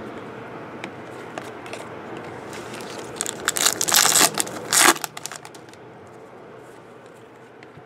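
Foil wrapper of a baseball card pack being torn open and crinkled by hand, a loud burst of crackling from about three to five seconds in.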